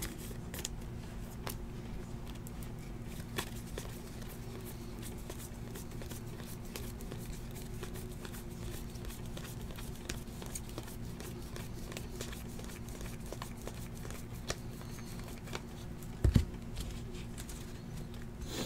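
Trading cards being handled and flipped through by hand, with faint scattered clicks and slides of card on card over a steady low hum. A single dull thump comes near the end.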